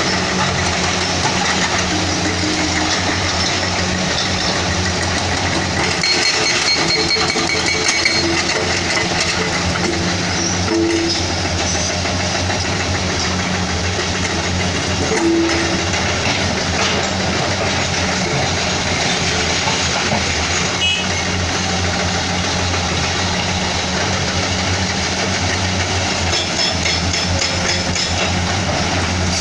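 Heavy construction machinery at work: a diesel engine running steadily under load, with scattered metallic clanks and brief high squeals.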